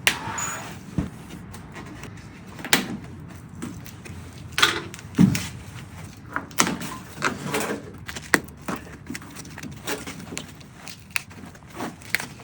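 Irregular metallic clicks, knocks and scrapes of small steel headlining clips being prised off the body of a Porsche 356.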